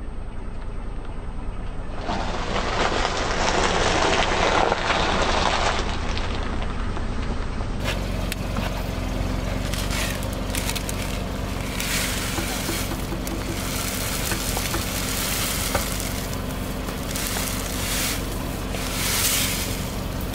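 A car tyre rolling over a row of packets of dry instant noodles, crackling and crunching as they break, over the low steady run of the car's engine. After that, the crushed plastic wrappers crinkle as they are handled and broken noodle bits trickle out of them.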